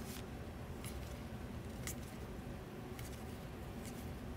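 Trading cards being flipped through by hand: faint slides and flicks of card stock, one card about every second.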